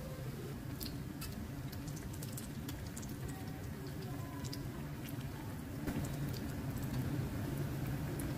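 Battered bread pakoras deep-frying in hot oil: a steady sizzle with scattered small pops and crackles, getting a little louder about six seconds in. A steady low hum runs underneath.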